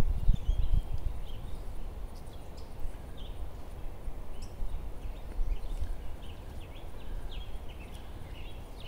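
Scattered faint bird chirps over a low steady outdoor rumble, with a few soft knocks from a spatula scraping food out of a plastic pot onto a plate in the first two seconds.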